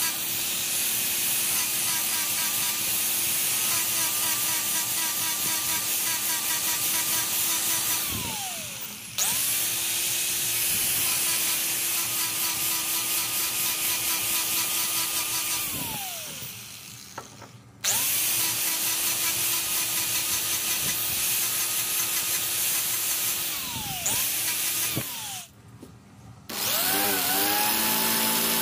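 Handheld electric power tool running at steady high speed on wood, switched off three times; each time its motor winds down with a falling whine and then spins back up.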